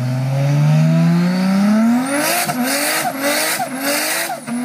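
Car engine revving up for about two seconds, then tyres screeching as the engine pitch surges up and drops back about twice a second, like a wheelspinning burnout.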